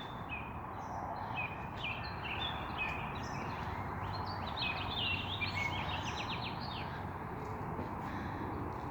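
Songbirds singing, a string of short chirps and quick trills that grows busiest in the middle, over a steady background noise.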